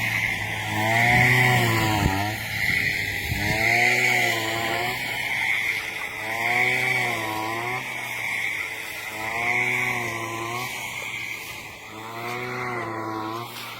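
Brush cutter engine running at high speed, its pitch dipping and recovering about every two seconds as the blade swings through and cuts rice stalks.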